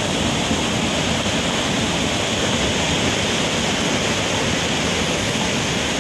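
Floodwater pouring over the crest of a dam as the full reservoir overtops it: a steady, heavy rush of falling water.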